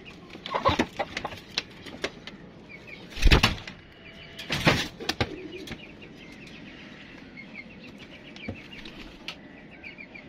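Birds' wings flapping in a wire-mesh aviary: two loud, sudden flurries about three and four and a half seconds in. From about halfway on, small birds chirp in quick little runs.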